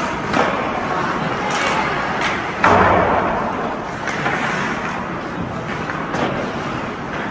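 Ice hockey play in a rink: several sharp knocks of sticks and puck and one loud bang about two and a half seconds in, typical of the puck or a player hitting the boards, over steady rink noise.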